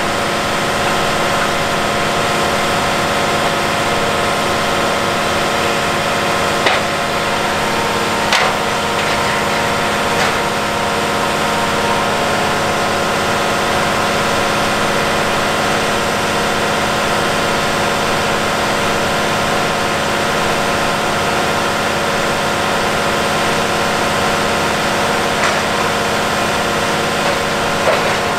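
Case IH Quadtrac 470's diesel engine running steadily at a standstill while the hitched mulch finisher's wings are folded hydraulically, with a few short metal clunks from the implement.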